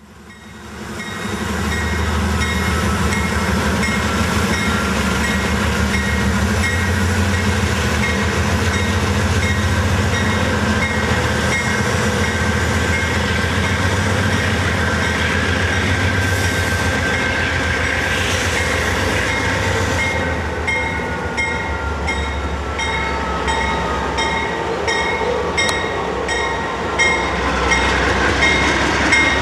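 Norfolk Southern diesel locomotives hauling a loaded auto-rack train pass close by, with a steady, heavy engine rumble over rolling wheel noise on the rails. About two-thirds of the way in, a faint falling tone and an even clicking of wheels over the rails come in.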